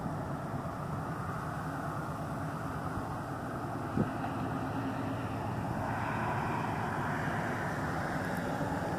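Steady outdoor rumble and hiss of wind and distant road traffic, growing a little louder after about six seconds, with one sharp click about four seconds in.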